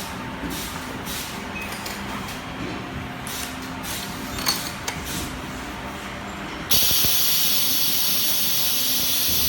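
Hot bar soldering machine running with a steady hum and short hisses of air, then a loud steady hiss of air starting about two-thirds of the way in and cutting off suddenly near the end.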